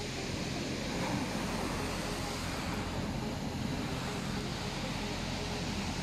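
Rough storm surf breaking and washing up over a pebble beach in a steady, unbroken rush, with wind on the microphone.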